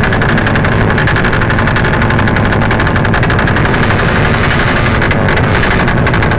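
A 150-cc motorcycle engine revved hard and held at high revs through a loud open exhaust, its firing pulses coming as a rapid, even rattle that stays steady without easing off.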